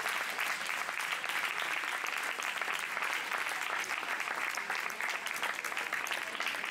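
Applause: many hands clapping together in a dense, steady patter that eases slightly near the end.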